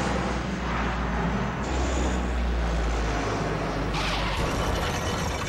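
Large four-engine cargo plane running, with a deep steady drone under a rushing noise. About four seconds in the drone drops away and a brighter rushing noise takes over as the plane rolls on the runway.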